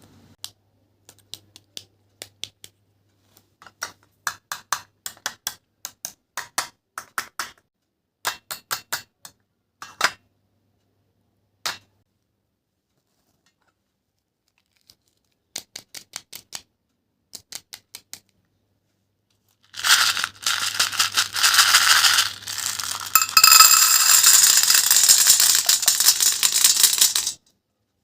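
Fruit being cut: runs of sharp clicks and taps, then, about twenty seconds in, some seven seconds of dense crackling, tearing-like noise that stops suddenly.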